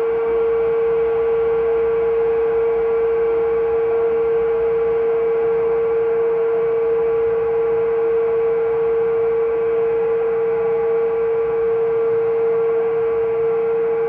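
Eerie horror build-up sound effect: a sustained drone held on one loud, steady mid-pitched tone, with fainter higher tones and a soft hiss beneath. It does not rise noticeably here.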